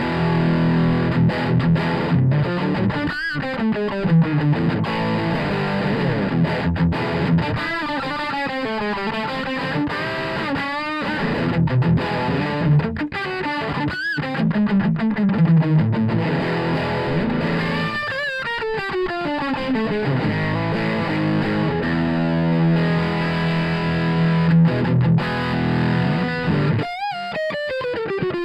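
Distorted electric guitar played through a JetCity JCA20H tube amp head into a Bugera 212V-BK 2x12 cabinet, with lead lines full of string bends and wide vibrato over sustained notes.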